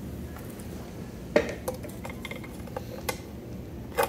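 A few light knocks and clinks as a tealight candle is set down inside a small chimney demonstration box and the box is handled, the loudest about a second and a half in and another near the end.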